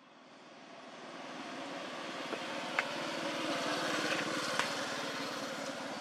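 A motor vehicle engine approaching and passing on the road, growing steadily louder over the first four seconds and then easing slightly, with a couple of short clicks midway.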